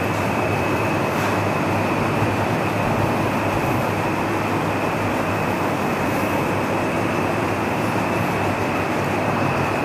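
Steady background noise: an even hum and hiss with a faint high whine, unchanging throughout, with no distinct events.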